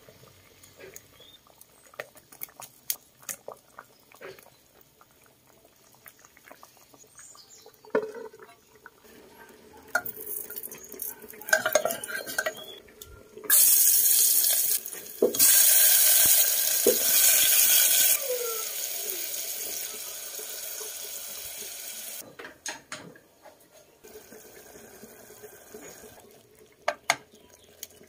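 Utensils clink and knock against a metal cooking pot. About 13 seconds in, water is poured into the pot for several seconds with a loud, even rush and a couple of short breaks, then fades to a quieter hiss that stops about 22 seconds in.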